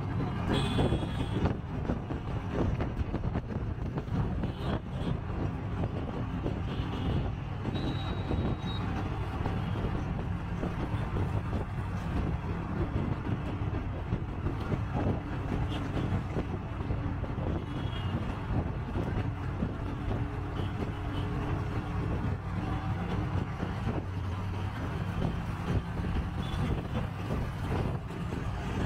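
Auto-rickshaw engine running steadily while under way, with road and traffic noise heard from inside the open cab.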